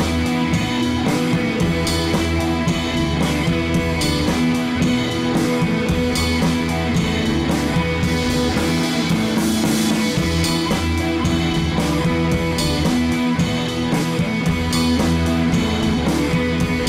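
Background rock music with guitar and drums, keeping a steady beat.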